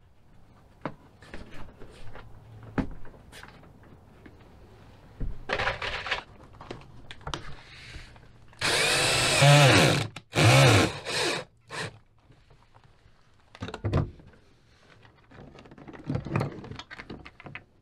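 Ridgid cordless drill running in three short bursts about nine seconds in, the first the longest, its motor pitch sweeping up and down, amid scattered handling clicks and rustling.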